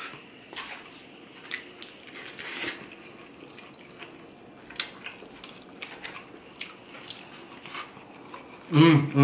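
Person chewing food with soft, wet mouth sounds and scattered light clicks of a metal fork working in a takeout box. Near the end comes a loud hummed vocal sound with falling pitch.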